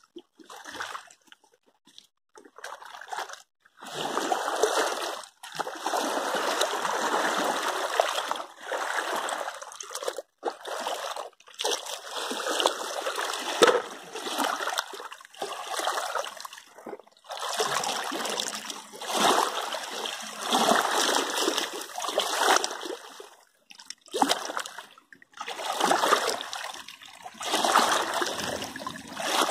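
Shallow muddy river water running and splashing over the bank, starting about four seconds in and coming in uneven surges with brief silent gaps.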